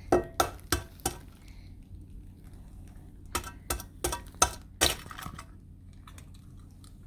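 An egg being tapped against the rim of a bowl to crack it: sharp light taps, four quick ones at the start, then a run of about seven more after a pause of two seconds.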